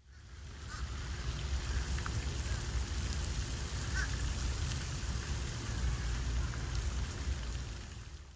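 Lake fountains spraying and splashing as a steady rain-like hiss, with wind rumbling on the microphone and a few faint short chirps. It fades in at the start and fades out near the end.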